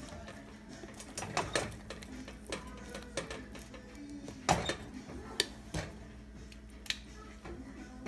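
Chicken in salsa simmering in a clay pot, with scattered small pops and clicks, and a utensil knocking against the pot once about halfway, over a steady low hum.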